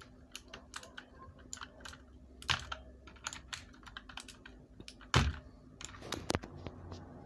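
Scattered clicks and light knocks from a mechanical keyboard with Outemu Blue switches as a keycap is pried off with a keycap puller, with one louder knock about five seconds in.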